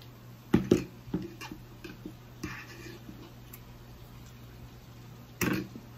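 A few sharp knocks and clicks: two close together about half a second in, lighter ones after, a brief rustle near the middle and a louder knock near the end.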